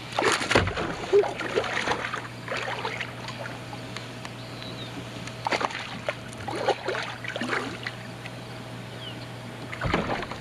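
A hooked largemouth bass being fought and reeled up to a kayak: scattered short splashes and handling knocks over a low steady hum.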